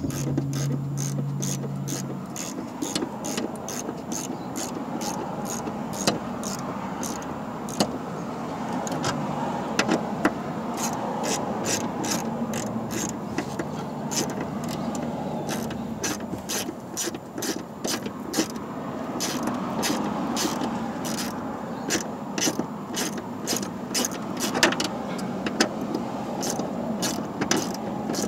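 Hand socket ratchet clicking in quick runs as it turns screws on the heater box, over a steady hum.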